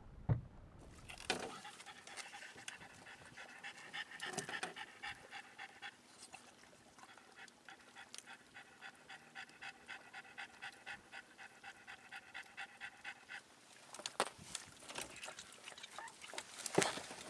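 French bulldog panting in quick, even breaths, about three a second, stopping a little past two-thirds of the way through. A few knocks and rustles follow near the end.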